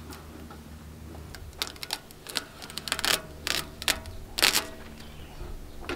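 A clear plastic sheet is handled and pressed against a steel ammo-can toolbox, giving a run of sharp crinkles and clicks. They start about a second and a half in and are loudest shortly before the end, over a steady low hum.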